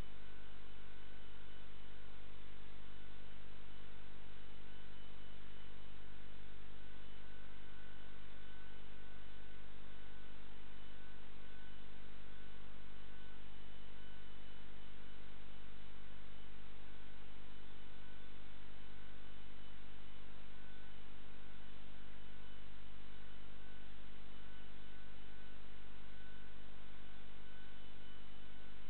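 Steady electrical mains hum with a stack of low buzzing tones and a faint higher whine over a constant hiss, unchanging throughout.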